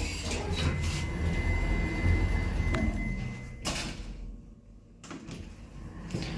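ThyssenKrupp service elevator doors sliding shut with a steady high tone sounding while they move, ending in a thud about three and a half seconds in. Lighter knocks follow near the end.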